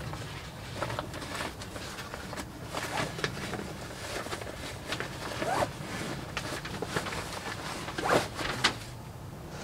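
Camping gear being packed: rustling and a zipper pulled in several short strokes, the loudest two close together near the end.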